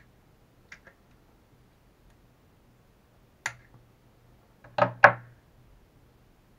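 Light clicks and sharp knocks from small tools and RC shock parts being handled on a work table, with two loud knocks in quick succession about five seconds in.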